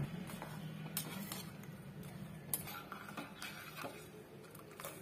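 Steel spoon stirring melting jaggery syrup in a stainless-steel saucepan, with scattered light clinks and scrapes of metal on metal, the sharpest about halfway through.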